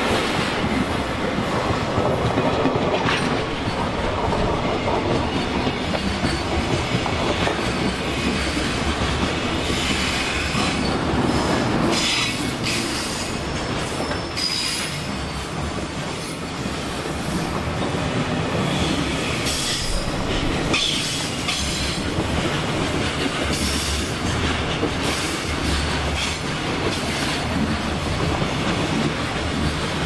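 Long freight train rolling past, its wagons' wheels clattering steadily over the rails with short bursts of high-pitched wheel squeal.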